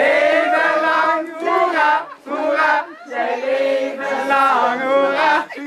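A group of people singing together, with long held notes and short breaks between phrases.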